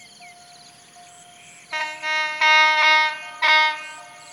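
Horn of an ALS diesel-electric locomotive sounding in a quick series of about four blasts, starting about a second and a half in, as the train approaches a level crossing. Insects chirp steadily throughout.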